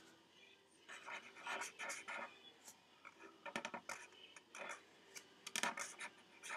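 Writing by hand on paper: faint scratching strokes of a writing tip, in several bursts with short pauses between them, as a word is written out.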